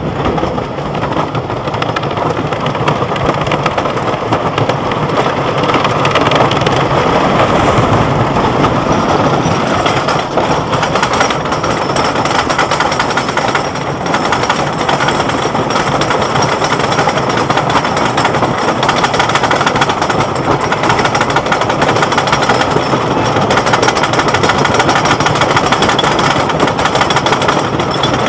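Roller coaster train running the circuit, heard from a seat on board: a loud, continuous rattling clatter of the train on the track.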